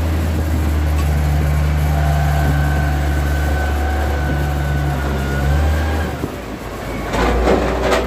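Diesel engine of a Mitsubishi motor grader running close by: a steady low drone with a thin whine above it. The drone falls away about six seconds in, and a short burst of louder noise follows near the end.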